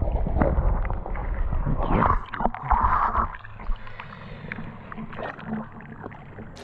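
Shallow river water sloshing and gurgling, with scattered knocks and scrapes of digging among the riverbed stones. Louder in the first half, quieter after about three and a half seconds.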